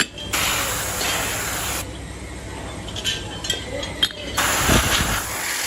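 Hissing spray in two long bursts, with a few light clicks in the pause between them.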